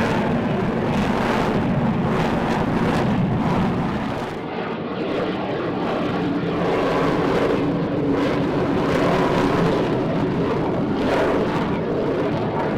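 Aircraft engine noise, continuous and loud, with a brief dip about four seconds in.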